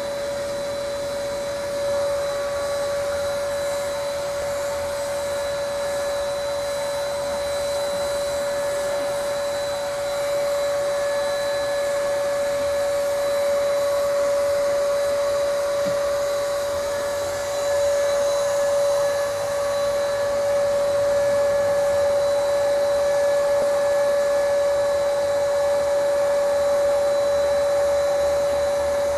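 Air-fed paint spray gun in use: its air supply runs with a steady whine under an even hiss of spraying air, slowly getting somewhat louder.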